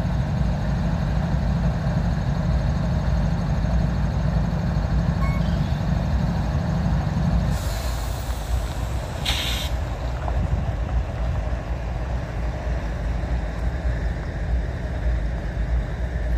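Train air brakes venting: a hiss of air starts about seven and a half seconds in and runs for about two seconds, ending in a short sharp blast. Under it is a steady low rumble that drops off as the hiss begins.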